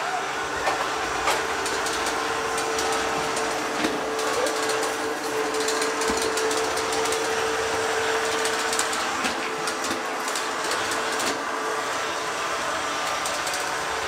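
Taurus Striker Mini robot vacuum running, its motor giving a steady whine over a hiss of suction, with scattered clicks and ticks as it drives across the floor and doormat.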